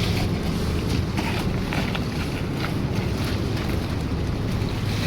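A construction machine's engine running steadily, with scattered light knocks and clanks over it.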